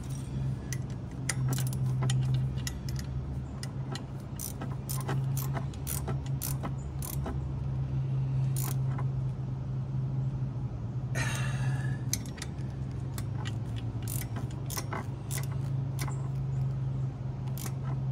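Ratchet wrench clicking in short, irregular strokes as it tightens 10 mm screws on a tractor's throttle bracket, with one brief rasping run of clicks near the middle, over a steady low hum.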